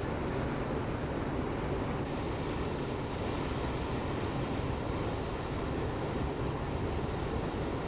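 Container ship passing close: a steady low rumble with water rushing at its bow wave, and some wind on the microphone.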